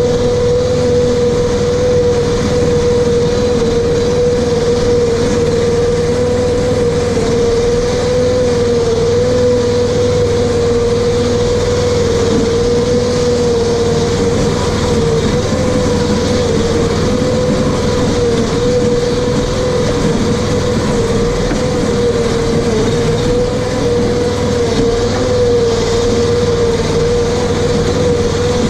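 The RS1000's engine running steadily, with a constant steady whine over a low rumble.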